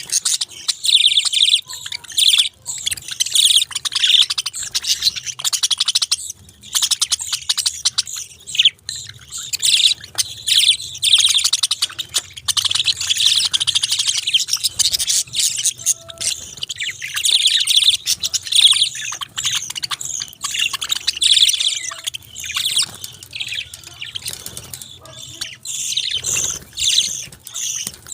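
Pet budgerigars chirping and warbling in a continuous, rapid chatter of high notes, with only brief pauses.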